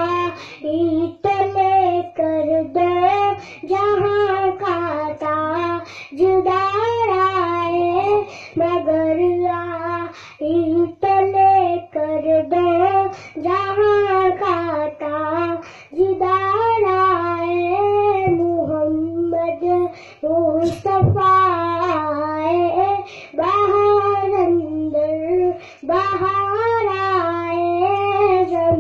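A young boy singing a naat, a devotional song, in phrases with short pauses for breath between them. A steady low hum runs underneath.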